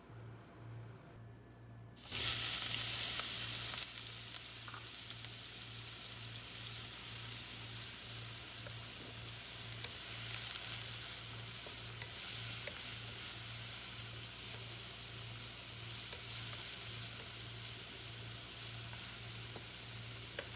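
Chopped onion hitting hot oil in a frying pan: a sudden loud burst of sizzling about two seconds in that settles into a steady sizzle as the onion is stirred.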